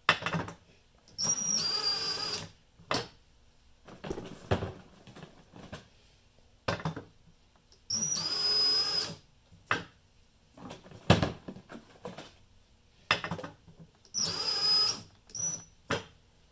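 Cordless DeWalt drill driving a bottle labeler's rollers through a threaded-rod coupling, in three short runs of about a second each, each run labelling a glass bottle. Each run is a high motor whine. Clicks and knocks come between the runs as glass bottles are set onto the rollers and lifted off.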